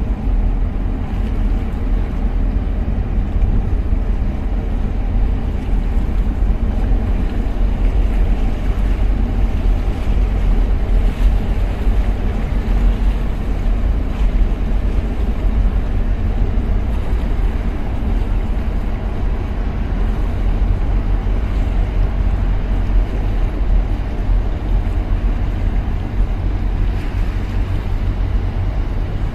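Steady low engine rumble with wind buffeting the microphone, heard from a boat running on the water.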